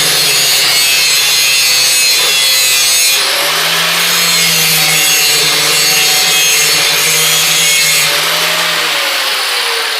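Power grinder grinding the steel bevel of a brush hog blade, its motor running under load with a steady hum under a harsh grinding rasp. It is switched off near the end and winds down with a falling pitch.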